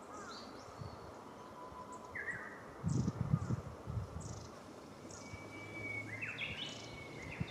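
Small birds chirping in short, scattered high calls and quick sweeps over a steady outdoor background. About three seconds in, a cluster of low thumps and rustling is the loudest part.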